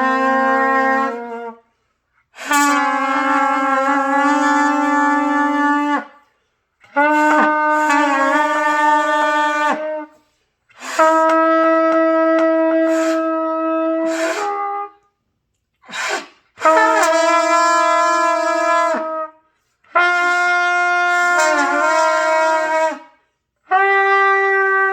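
Trumpet playing a series of long held notes, each about two to four seconds with short breath breaks between, the pitch wobbling now and then, as in a beginner's long-tone and Do-Mi-Sol practice. One brief note comes about two thirds of the way through, and the last note is higher.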